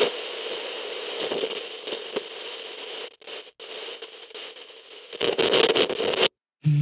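Crackling, hissing static with a couple of brief dropouts, then a louder burst of crackle about five seconds in that cuts off suddenly.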